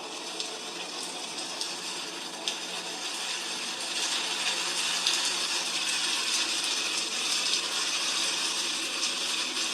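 Heavy rain falling: a steady hiss with scattered sharp drop clicks, growing louder about four seconds in.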